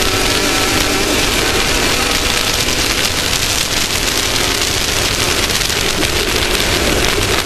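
Off-road race vehicle's engine running hard, under a steady loud rush of wind and dirt noise.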